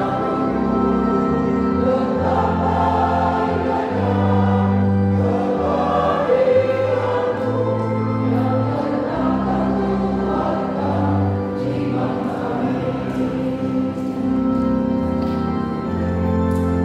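Mixed choir of men and women singing a hymn in parts, over long sustained low organ notes.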